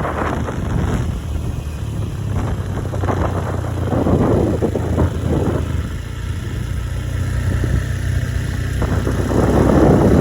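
A small engine running steadily at an even speed, with loud rushes of noise that swell and fade several times over it.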